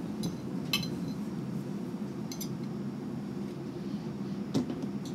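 Several light clinks of a metal fork against a china plate, the loudest near the end, over a steady low hum.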